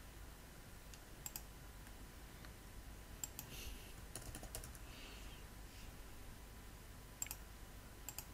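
Computer mouse clicks and a few keyboard keystrokes: sharp, scattered clicks, some in pairs, with a short run of keystrokes in the middle, over a faint steady low hum.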